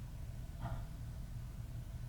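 Steady low hum of room noise, with one brief soft rustle a little over half a second in.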